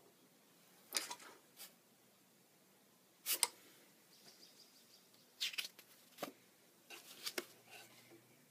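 Faint rustles and taps of paper index cards being handled and swapped by hand: a handful of short, sharp scrapes and clicks, the loudest a little over three seconds in.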